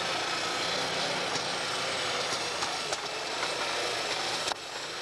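A pulling tractor's engine running hard under load as it drags a weight-transfer sled down the track: a loud, dense, steady noise that drops off suddenly about four and a half seconds in.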